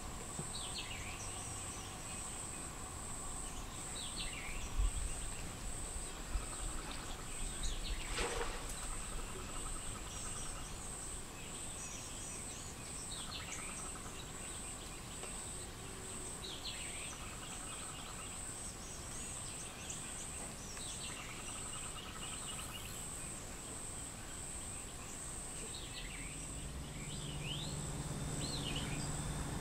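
Outdoor wetland ambience: a steady high-pitched insect drone, with a bird repeatedly giving short sweeping chirps every few seconds. A low steady hum comes in near the end.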